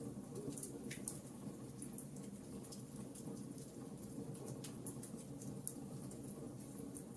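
Campfire crackling: a steady low rumble of flames under frequent small, irregular crackles and pops.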